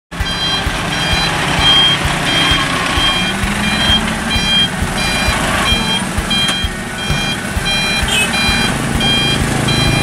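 Light dump truck reversing: its reverse alarm sounds short, even beeps, about two a second, over the truck's engine running at low speed.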